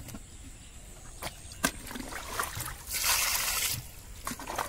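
Muddy water and live snakehead fish tipped out of a plastic bucket onto a woven bamboo basket. There are a couple of sharp knocks, then about a second of splashing pour near the end.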